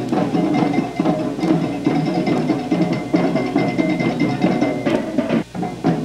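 Marching parade music with drums beating, on a low-quality Super 8 soundtrack. It drops out briefly near the end.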